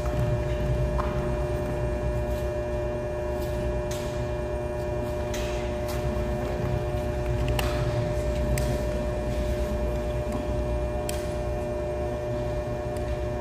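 Steady electrical hum with a low rumble underneath, with a few faint clicks scattered through.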